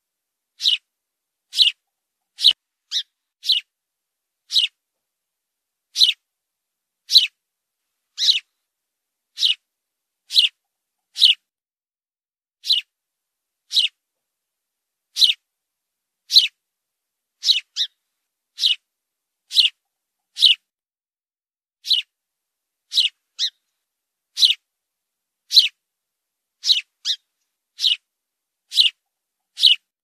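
House sparrow chirping: short, high single chirps about once a second at uneven intervals, now and then two in quick succession, with clean silence between them.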